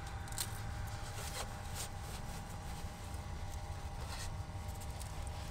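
Low wind rumble and a faint steady hum, with a few light clicks and rustles of hands fitting a small camera gimbal onto an FPV quadcopter frame.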